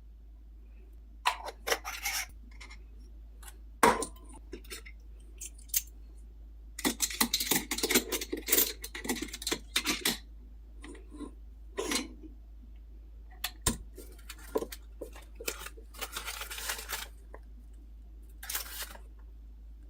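Metal parts of a Bisimple manual coffee grinder clinking, clicking and scraping in irregular bursts as it is handled and opened, with a few short rustling, scraping stretches.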